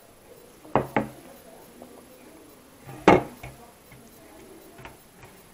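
A few sharp knocks and clinks as a drinking glass is set down and rice is picked up by hand from a stainless steel thali. Two quick knocks come about a second in and a louder one about three seconds in.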